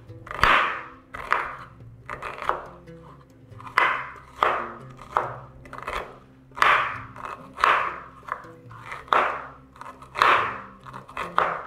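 Chef's knife chopping an onion into small cubes on a wooden cutting board: about a dozen crunchy chops, roughly one a second, over soft background music.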